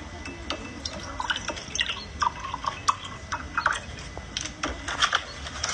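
Liquid poured from a plastic bottle into a ceramic mug, coming out in short glugging spurts and drips. This is followed near the end by a few sharp clicks.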